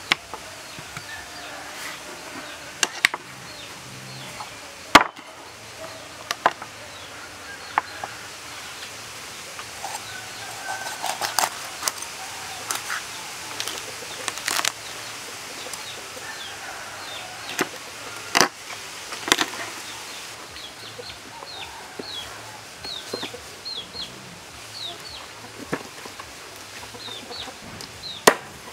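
Knife cutting through a raw poultry carcass on a wooden board, with irregular sharp knocks where the blade strikes the wood, a dozen or so spread over the stretch.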